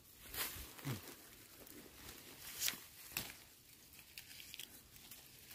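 Faint rustling and crackling of leaves and twigs, with a few brief snaps, as the branches of a wild pak wan (Melientha suavis) tree are handled and its young shoots picked by hand.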